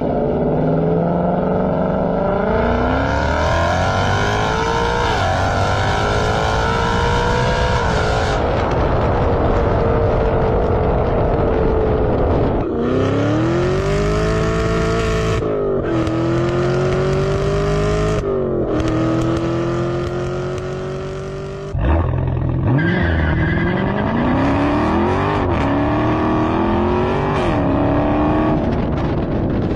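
Muscle car engines, one after another, accelerating hard through the gears. Each pitch climbs and drops back at every upshift, with abrupt cuts from one car to the next.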